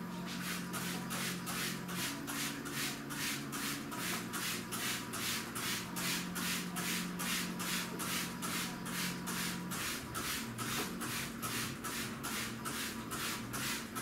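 Rhythmic hand scrubbing at a kitchen sink, even strokes at about three a second, over a low steady hum that shifts pitch a few times.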